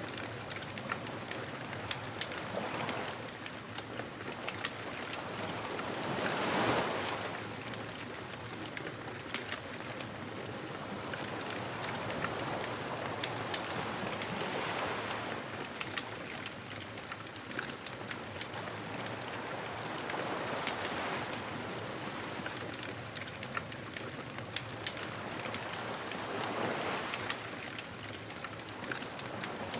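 Beach bonfire ambience: a wood fire crackling with a constant patter of small pops, over ocean waves that swell and wash in every several seconds.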